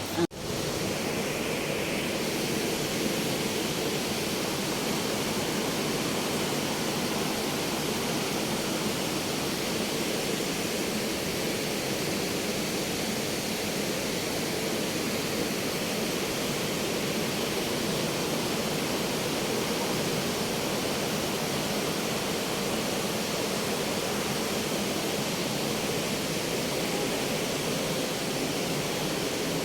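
Steady rush of water pouring over a dam, an even unbroken hiss.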